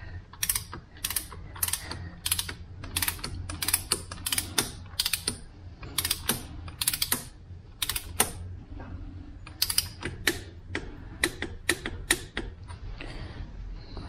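Ratcheting torque wrench with a 1 1/8 inch socket clicking in short runs as it tightens a block heater element into a Kubota V3307 diesel engine block. The clicks come a few per swing and thin out near the end.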